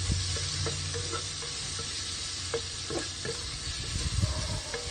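Shrimp frying in garlic butter in a pan, sizzling steadily, with a few light clicks of a utensil against the pan.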